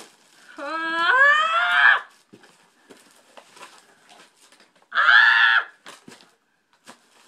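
A person's excited wordless squeals: a long one rising in pitch about a second in, and a shorter, higher one about five seconds in, with faint clicks and rustles between.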